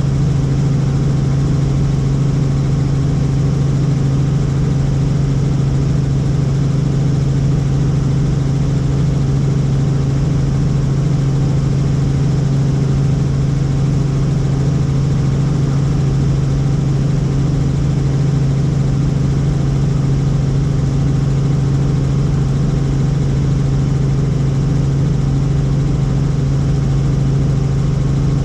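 Tour helicopter running at a steady, unchanging drone, dominated by a strong low hum with fainter steady tones above it.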